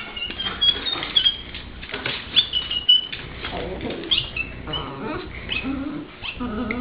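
A dog making a string of short, high-pitched squeaky whines and chirps, with some lower-pitched sounds mixed in during the second half.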